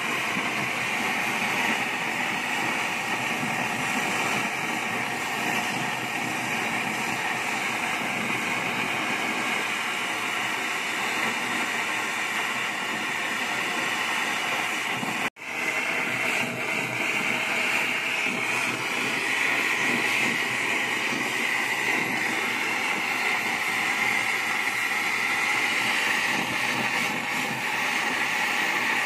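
A gas torch flame burning with a steady hiss, as used for melting gold. It breaks off abruptly for an instant about halfway through and comes straight back.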